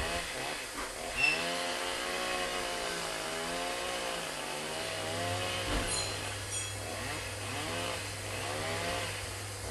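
Chainsaw running while cutting tree branches, its engine speed rising and falling again and again as the chain bites, with a short knock about a second in.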